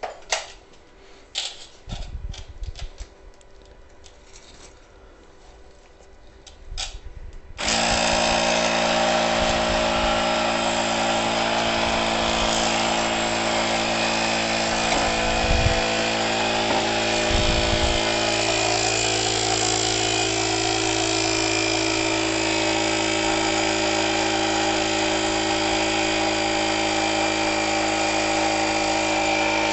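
A few seconds of clicks and knocks from handling the hose, then about eight seconds in a small electric air compressor switches on suddenly. It runs steadily with a buzzing mechanical hum as it inflates a freshly mounted electric unicycle tire.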